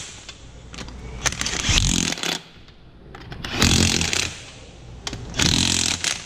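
A handheld power tool runs the wheel's lug nuts down in four short bursts about two seconds apart, with a buzzing, rattling whir each time: the lug nuts being run tight on the wheel.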